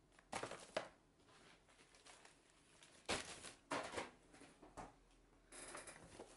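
Plastic mailer bags crinkling and rustling as they are handled: a handful of short rustles with quiet gaps between them, and a longer rustle near the end.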